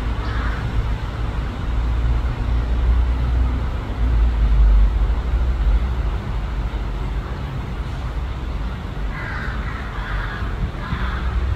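A crow cawing in short, harsh calls: one just after the start and a few more near the end, over a loud, steady low rumble.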